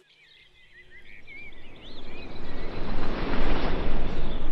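Small birds chirping, under a rushing noise that swells up from about a second in and is loudest near the end.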